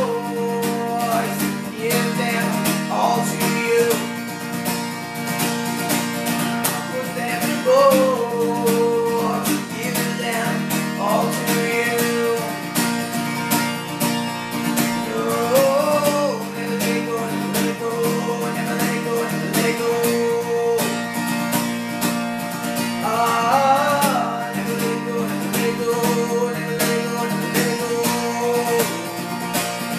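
Acoustic guitar strummed steadily in chords, with a young man singing in phrases over it.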